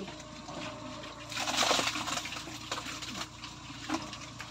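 Pigs eating at a trough, with a short, loud rushing pour about a second and a half in as feed is tipped in from a scoop.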